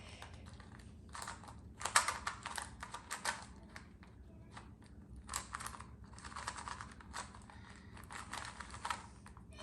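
A speed cube without magnets being turned fast during a solve: rapid plastic clicking and clattering of the layers, in bursts with short pauses between them.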